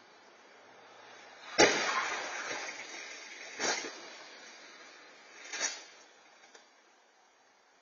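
Vehicle crash: a loud bang about a second and a half in with a noisy tail that fades over a second or so, then two weaker bangs about two seconds apart.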